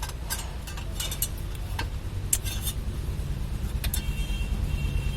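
Scattered light metal clinks and taps of tools and parts as a car's gearbox is worked into line with the engine, over a steady low rumble.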